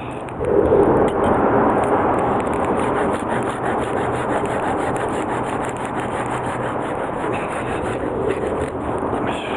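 Hand saw cutting through firewood, a continuous rasping of the blade against the wood that grows louder about half a second in.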